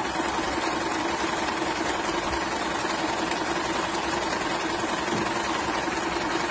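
Jaguar compact electric sewing machine running steadily at speed as it sews a triple stitch, a constant motor hum with the rapid needle mechanism.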